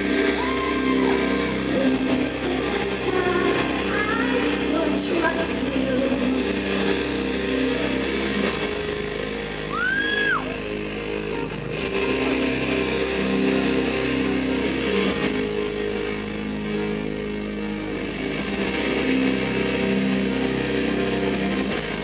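Live band music: steady held keyboard chords under a woman's singing, with the singing coming and going.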